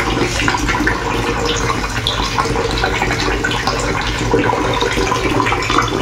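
Steaming hot water from an instant geyser running steadily out of a wall-mounted kitchen mixer tap and splashing into the sink.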